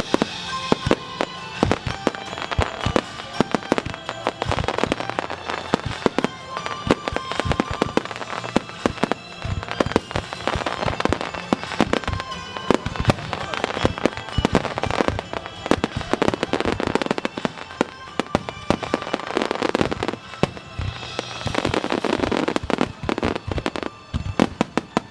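Aerial fireworks bursting at close range in a rapid, dense barrage, with sharp bangs and crackling several times a second and no break.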